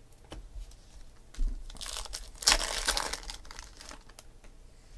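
A baseball card pack's wrapper being torn open and crinkled, a burst of crackling and tearing from about a second and a half in to about three seconds in, loudest around two and a half seconds, with lighter rustling around it.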